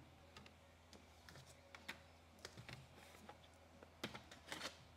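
Near silence: quiet room tone with faint, scattered small clicks and a couple of short soft rustles about four seconds in.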